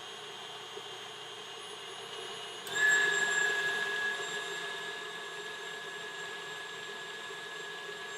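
KitchenAid stand mixer running steadily with its wire whip beating heavy cream. About three seconds in, the motor's whine abruptly gets louder and higher, then eases back and settles into a steady run.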